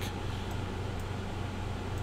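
Steady background hiss with a low hum under it, with two faint ticks about half a second and one second in.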